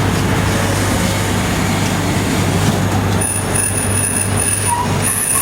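Zoo passenger train rolling along, heard from on board: a steady rumble with a constant low hum. From about three seconds in, a thin, high wheel squeal joins in.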